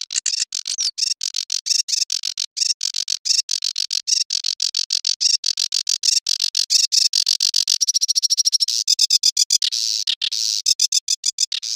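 Sedge warbler singing: a fast, unbroken run of varied chattering notes, with a very rapid trill around eight seconds in and a few longer, noisier notes about ten seconds in.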